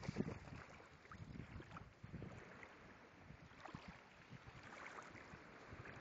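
Faint, irregular water splashing and lapping, with light wind noise.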